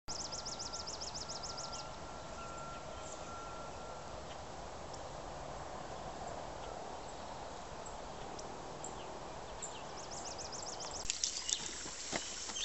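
Steady outdoor hiss with high, fast trilling calls at the start and again shortly before the end. In the last second and a half it gives way to pigs feeding at a trough, with sharp clicks and knocks.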